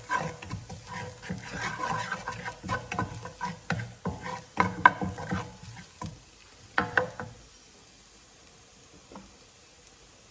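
A spatula stirs and scrapes chopped garlic frying in oil in a pan, with quick knocks and scrapes against the pan. The stirring eases off about six seconds in, with a couple of sharper knocks just after, and then stops.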